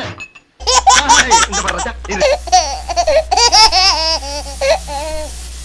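Loud, high-pitched laughing and exclaiming voices from an old film clip, over a steady low hum in the film soundtrack.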